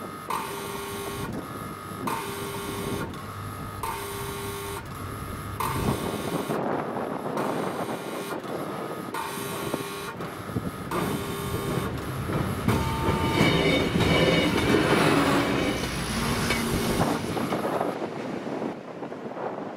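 Level-crossing warning horn sounding a repeating electronic tone that alternates between two pitches about every three-quarters of a second. From about six seconds in a rising rush of wind on the microphone grows over it and partly masks it. The warning stops near the end.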